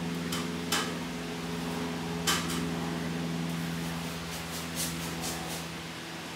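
A paintbrush clinks against a metal paint can three times, then the brush scrubs acrylic paint onto a canvas in a run of short scratchy strokes, over a steady low hum.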